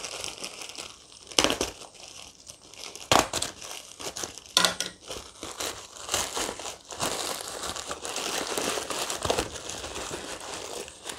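Plastic courier mailer bag being crumpled and torn open by hand, crinkling throughout, with a few sharper, louder crackles in the first half.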